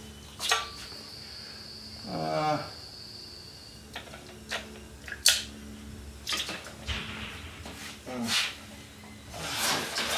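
Scattered knocks, clicks and rustling as a vacuum cleaner and its hose are pulled out from under a table, with a brief low vocal sound about two seconds in; the vacuum is not yet running.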